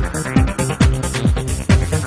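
Electronic dance background music with a steady four-on-the-floor kick drum, a little over two beats a second.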